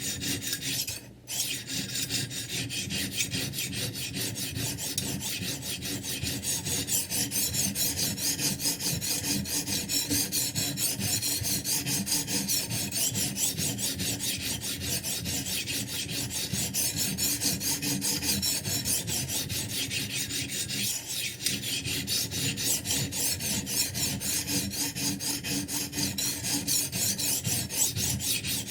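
A sharpening stone on a Ruixin Pro 3 guided knife sharpener, scraping back and forth along a kitchen knife's edge in quick, continuous strokes, with a brief pause about a second in.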